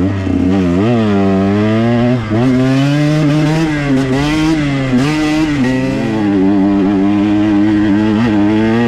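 A KTM 125 XC's two-stroke single-cylinder engine revving up and down as the dirt bike is ridden, its pitch rising and falling continually with the throttle, with a brief drop about two seconds in.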